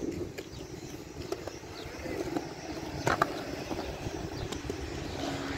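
Skateboard wheels rolling over concrete, with a single sharp clack about three seconds in.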